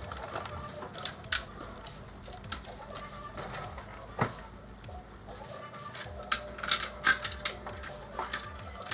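Spice jars and containers being handled and set down: a string of sharp clicks and knocks, one strong knock about four seconds in and a quick cluster of them in the second half.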